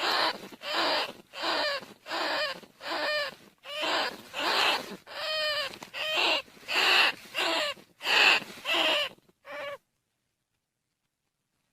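Rat decoy call: a rapid run of squeaky, chattering squeals of rice-field rats and bandicoot rats, about two calls a second, used to lure the rats in. The calls stop abruptly about ten seconds in.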